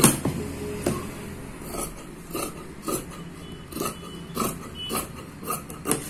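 Large steel tailoring shears cutting through printed fabric: a string of sharp snips as the blades close, about two a second, the first one the loudest.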